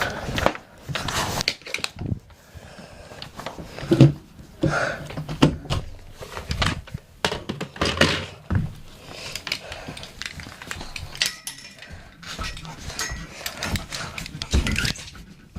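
Irregular knocks, clicks and clattering, with one sharp thump about four seconds in.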